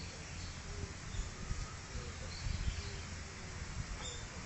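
Outdoor ambience: faint, short bird chirps scattered over a low rumbling noise.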